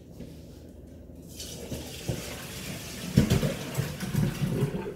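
Pot of boiled red potatoes and their hot cooking water being drained into a kitchen sink: water splashing and rushing, building from about a second and a half in, with heavier thuds from about three seconds in as the bulk pours out.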